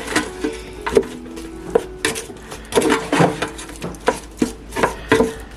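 A utensil stirring and scraping in an air fryer pan, knocking against it with irregular clicks and taps.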